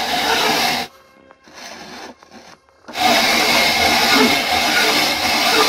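Hand-cranked cast-iron grinder crushing dry eggshells into powder, a steady crunching rasp. It stops for about two seconds about a second in, then resumes.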